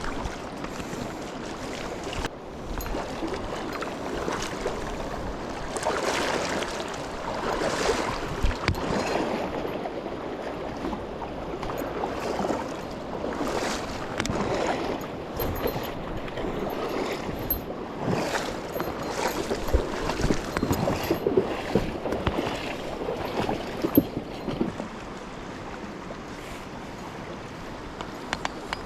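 River water rushing and splashing close to the microphone, coming in uneven surges that ease off near the end.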